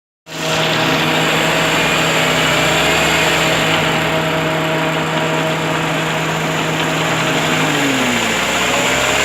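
Mitsubishi Lancer X's 1.5-litre four-cylinder engine running steadily, with a knock that the owner places in the gearbox. A little before the end the engine's tones glide and shift in pitch.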